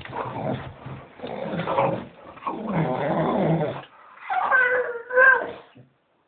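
Staffordshire Bull Terrier vocalising excitedly while waiting for a walk: a run of rough, grumbling growl-like noises, then two wavering high whines near the end.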